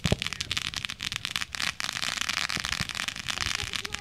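A firework going off with one sharp crack at the start, then a dense, rapid run of crackling that goes on without a break.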